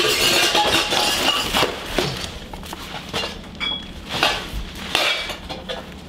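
Food containers and plastic packaging being handled and pulled out of a refrigerator: irregular clattering knocks and rustling.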